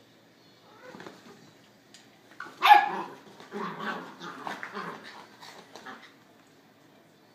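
A dog barking: a loud bark a little under three seconds in, then a run of shorter barks that stops about six seconds in.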